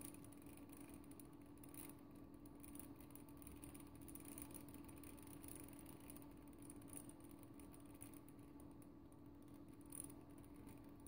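Faint clicking of ratchet pawls and plastic gears turning in a Lego Technic two-way to one-way mechanism as its crank is turned by hand; the ratchets sit on two differentials that act as freewheels.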